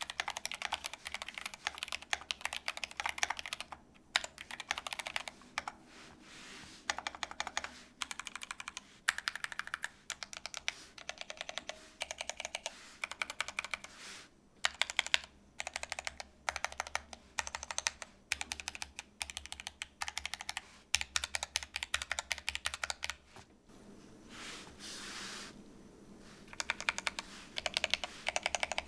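Typing on a GMMK Pro mechanical keyboard with Gateron Black linear switches and PBT keycaps. Quick runs of keystrokes come in bursts with short pauses between them.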